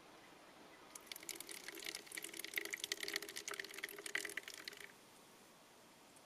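Water from a trailside spring running and splashing, starting about a second in and cutting off abruptly after about four seconds.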